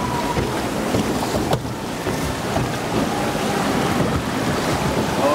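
Steady rushing and sloshing of water in a log flume trough as the log boat floats along, with wind buffeting the microphone.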